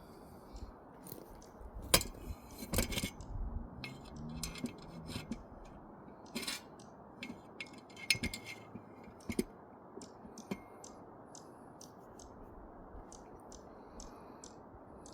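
Irregular light clicks and clinks of small hard parts of a bird feeder being handled and adjusted, with the loudest knock about two seconds in and further clusters of clicks around the middle.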